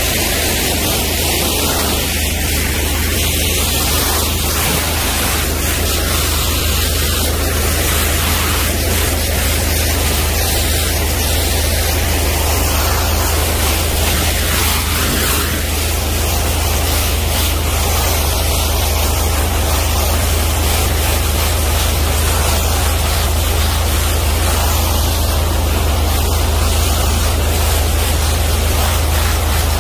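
A 500-bar high-pressure washer jet spraying continuously, giving a loud, steady hiss of water with a steady low hum underneath.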